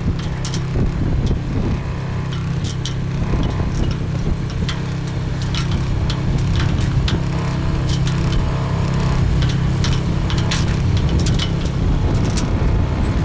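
Honda 5 hp outboard motor running steadily under way, driving a small yacht through choppy water, with many short crackles of wind and spray over the engine drone.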